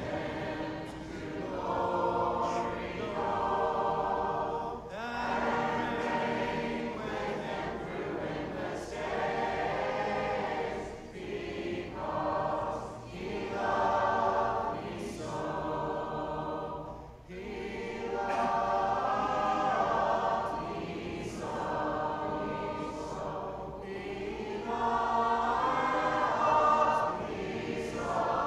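Congregation singing a hymn together, phrase by phrase with brief breaths between lines: the invitation song sung standing at the close of a sermon.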